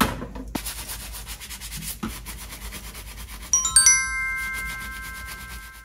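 Dish sponge scrubbing dishes in a stainless steel sink in rapid, even rubbing strokes. About three and a half seconds in, a bright chime of several bell-like notes rings out over it, louder than the scrubbing, and is held to the end.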